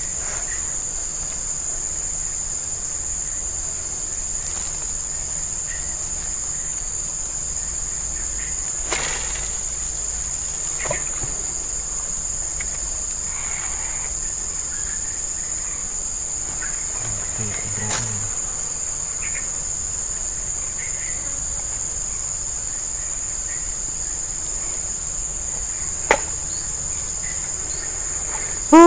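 A steady, high-pitched chorus of insects buzzing without pause, with a few sharp ticks scattered through it.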